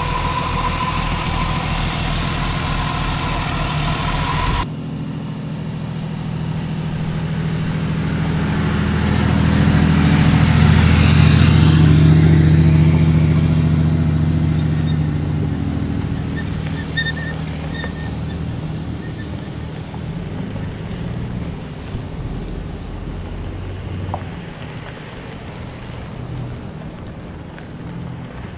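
A truck engine idles for a few seconds. Then pickup trucks, Ford Raptors, drive past on a dirt road: engine and tyre noise swell to a peak about eleven seconds in and fade away, with more trucks following more quietly.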